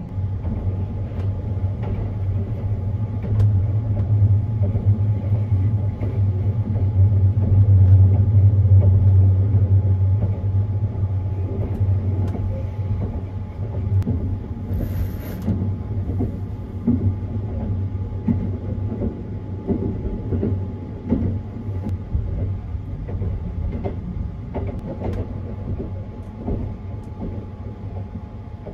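The Sunrise Izumo 285 series electric sleeper train running along the line, heard from inside a compartment: a steady low rumble that grows loudest about a third of the way in and then eases, with scattered light clicks and knocks from the carriage.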